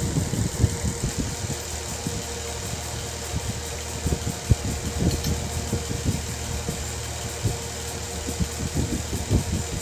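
Spatula scraping and knocking against a kadai in short irregular strokes as thick curry gravy is stirred and scooped into a steel bowl, over a steady low mechanical hum.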